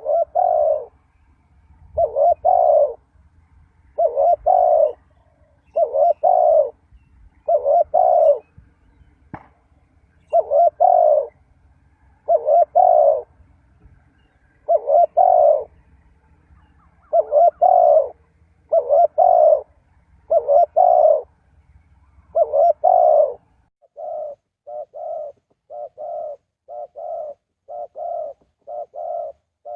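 Spotted dove cooing, a repeated call of about a second, one phrase every one and a half to two seconds. About four-fifths of the way through, the cooing turns quieter, with short clipped coos at about two a second.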